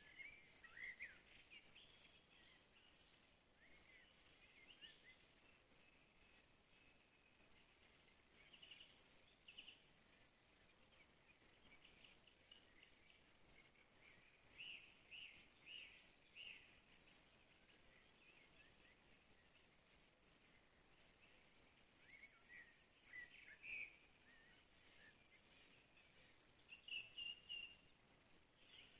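Faint outdoor ambience: a cricket chirping in a steady, even high-pitched pulse, with short bird chirps here and there, a small cluster just before the end.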